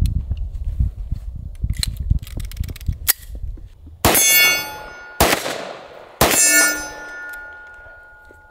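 Three shots from a Magnum Research Desert Eagle L5 in .357 Magnum, about a second apart starting four seconds in, each followed by steel targets ringing; the ringing lingers after the last shot. Before the shots, a low rumble with a few small clicks.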